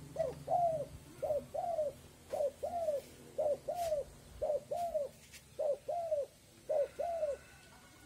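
Spotted dove (tekukur) cooing steadily: seven two-note coos, each a short note followed by a longer arched one, about one a second.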